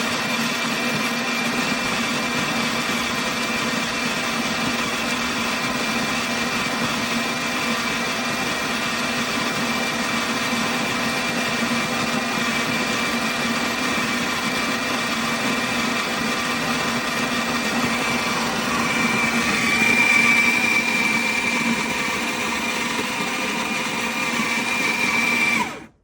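Electric conical burr coffee grinder's motor running steadily, with a high whine that grows louder about 19 seconds in; it cuts off abruptly near the end.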